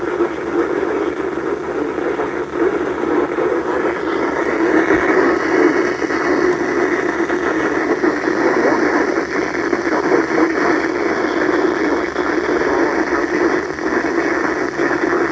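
Noisy radio reception: a steady, loud rushing hiss of static from a receiver, with no clear tones.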